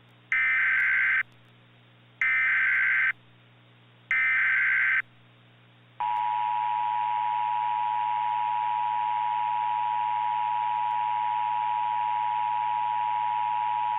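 Emergency Alert System tones: three short bursts of the SAME header data signal, each just under a second, then the two-tone EAS attention signal starting about six seconds in and holding steady for about eight seconds, over a faint low hum.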